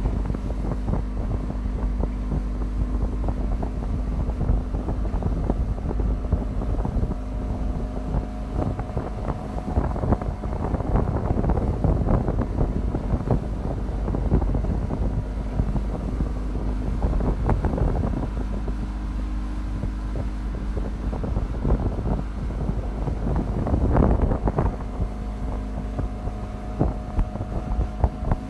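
Motorboat engine running steadily under way, with the wake rushing behind and gusts of wind buffeting the microphone.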